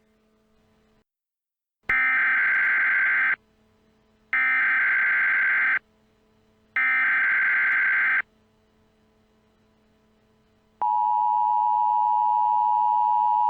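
Emergency Alert System SAME header: three short bursts of shrill, buzzy data tones about a second apart. About three-quarters of the way in, the steady two-tone EAS attention signal starts and holds. Together they mark the start of a new emergency alert.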